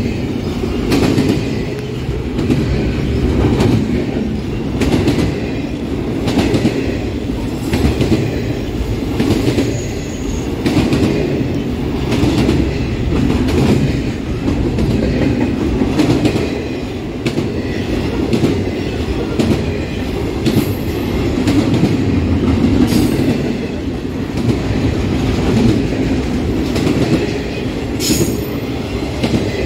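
Freight train cars rolling past, with a steady rumble and a clickety-clack of wheels over rail joints. There are a few brief, high wheel squeals, most of them in the second half.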